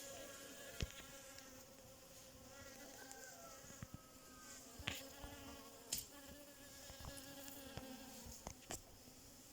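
Bees buzzing: a faint, steady hum of several overlapping tones that waver slightly in pitch, with a few short sharp clicks.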